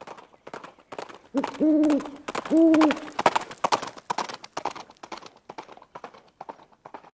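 Intro sound effect: a steady run of clip-clop knocks, about three a second, with two loud hooting calls, one about a second and a half in and one about two and a half seconds in. The knocks fade toward the end, and the sound cuts off suddenly.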